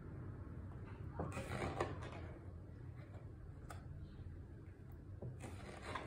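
Pages of a hardcover art book being turned by hand: two short papery swishes, about a second in and again near the end, over a low steady hum.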